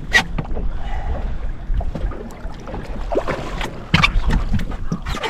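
Low wind rumble and water lapping against a small boat's hull, broken by a few sharp knocks.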